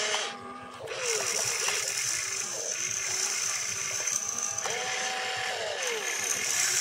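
Small electric motors and gears of an RC excavator whining as the boom and bucket move, the pitch rising, holding and falling with each movement. The level dips briefly about half a second in.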